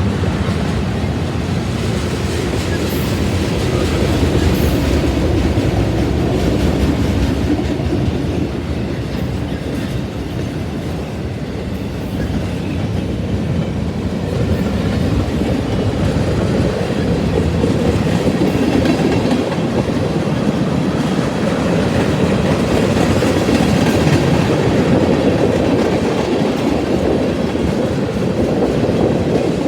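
Manifest freight train's cars rolling past with a steady heavy rumble and the clickety-clack of steel wheels over rail joints.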